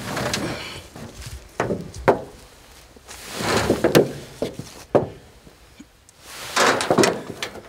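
A dead white-tailed deer being dragged up a steel-mesh trailer ramp onto a wooden trailer deck: sharp knocks as the body and legs bump the metal and boards, and two longer scraping slides, about three seconds in and again near the end.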